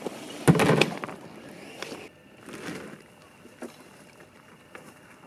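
A kayak hull scraping and grinding over beach stones about half a second in, followed by quieter crunching footsteps on the stones.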